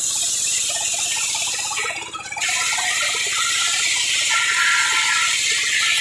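Belt-driven circular saw blade ripping a plank of terap wood lengthwise: a loud, high-pitched cutting noise that eases for a moment about two seconds in, then carries on. The saw's drive keeps up a steady low hum underneath.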